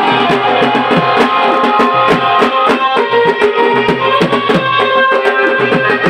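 Two-headed barrel drum (dhol) played by hand in a lively dance rhythm, its low strokes sliding down in pitch, over music with held melodic notes.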